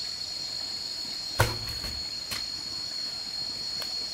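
Steady high-pitched buzzing of forest insects. About a second and a half in, one heavy wooden thud, a log dropped onto a log bridge, then two lighter knocks.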